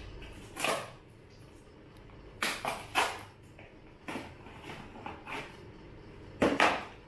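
Cardboard packing sleeves rustling and scraping in several short bursts as they are worked loose and pulled off a bicycle's handlebars.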